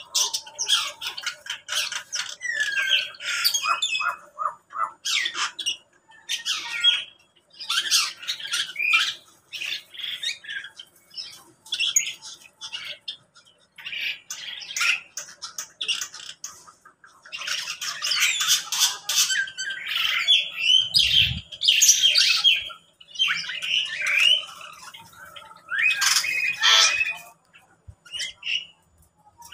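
A mixed flock of caged aviary birds, among them lovebirds and ring-necked parakeets, squawking and chirping in overlapping bursts with short pauses between them.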